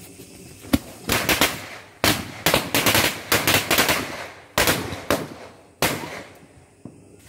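A string of firecrackers going off on the ground: a rapid, irregular crackle of sharp bangs for about five seconds, ending with a last bang near the end.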